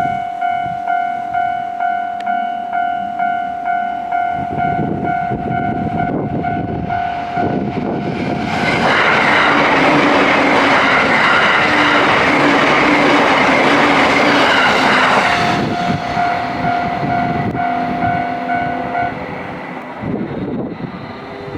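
A level-crossing alarm rings in steady repeated pulses while a JR East E657 series electric limited express passes at high speed. The train's rush takes over for about seven seconds midway and drowns out the bell. The bell is heard again for a few seconds after the train and then stops.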